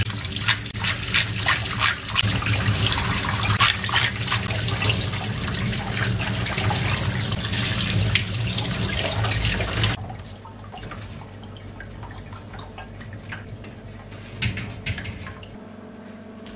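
Tap water running and splashing onto a gutted sea bass and a perforated stainless steel tray as the blood is rinsed out of the belly cavity. The water stops abruptly about ten seconds in, leaving only faint handling sounds with a couple of light knocks near the end.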